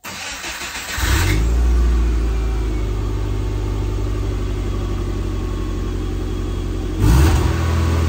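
A 1998 Subaru Forester's flat-four engine, with its rear catalytic converter drilled out, heard at the tailpipe. It cranks for about a second, catches, and settles into a steady, low, rumbling idle, with a brief rise in engine speed about seven seconds in.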